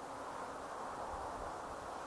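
Steady outdoor background noise, an even hiss with no distinct events, while the railway crossing stands idle.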